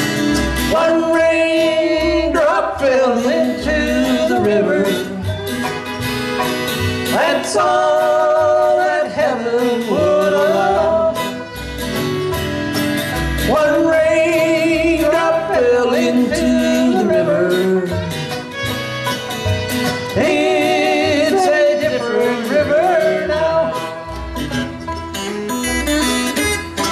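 Live bluegrass band playing: fiddle, banjo, acoustic guitars and upright bass.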